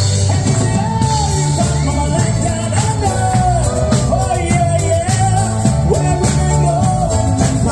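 Upbeat pop or rock-and-roll song with a singer over a steady beat.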